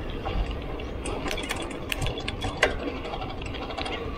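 Mountain bike rolling on a grooved concrete road: quick mechanical clicking and rattling from the bike, typical of the rear freewheel ticking while coasting, over a steady low rumble of tyres and wind.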